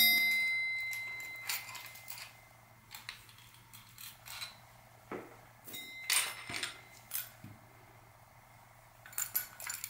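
Small metal tool parts of a bearing-puller set and a steel bottom bracket cup being handled and fitted together: a ringing metallic clink at the start and another about six seconds in, with scattered light clicks and taps between and a quick cluster near the end.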